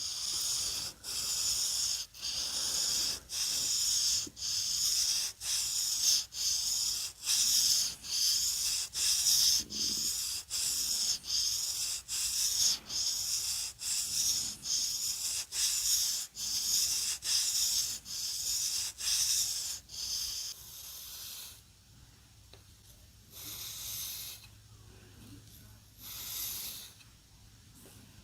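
Toledo Salamanca knife blade stroked back and forth across a sharpening stone, a bright, even scraping at about one and a half strokes a second. The strokes stop about 21 seconds in, followed by two slower, separate strokes.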